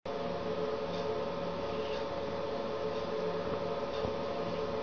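A steady hum with several held tones over a background hiss, with a few faint ticks.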